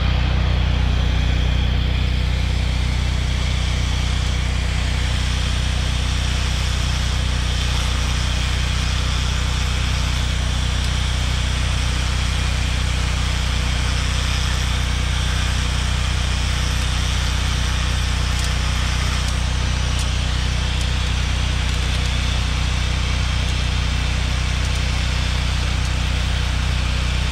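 An engine running steadily at one even speed, a constant low drone.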